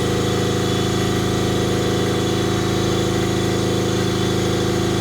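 Pilot-plant processing equipment running with a steady, unchanging machine hum made of several layered tones.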